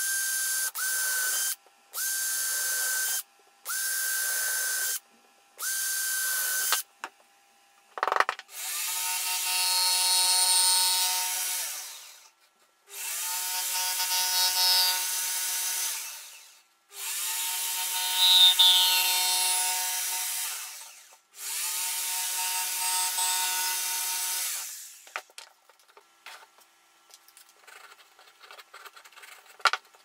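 A power drill runs in five short bursts of about a second each, boring holes through MDF at the corners of a marked rectangle to start a cut-out. After a sharp click, a jigsaw cuts through the MDF in four runs of about three to four seconds each, then there are light clicks of handling near the end.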